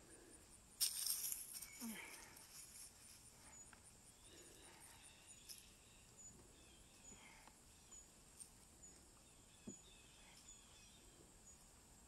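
Faint rustling and scraping of gloved hands digging through loose wood-chip mulch and soil to unearth sweet potatoes, with a louder brushing rustle about a second in and a few light clicks.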